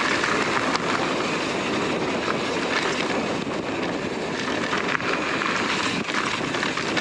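YT Izzo mountain bike rolling fast downhill on a dirt trail: a steady rush of tyre and wind noise, with scattered clicks and knocks as the bike rattles over rough ground.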